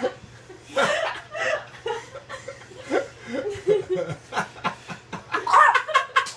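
People laughing in short repeated bursts, loudest near the end.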